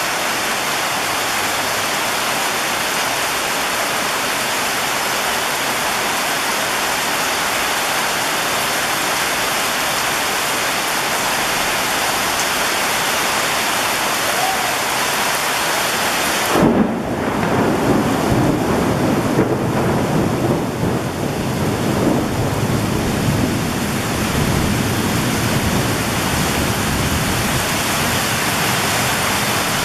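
Heavy rain pouring steadily. About 17 seconds in, a clap of thunder breaks in and rumbles on for several seconds before fading back under the rain.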